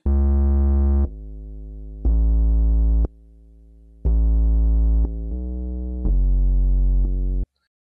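Sustained bass notes, about a second each, changing pitch from note to note, from a prepared test file whose parts are set at deliberately different levels. Loud notes alternate with much quieter ones, one of them very faint, giving a wide dynamic range. The notes stop abruptly a little before the end.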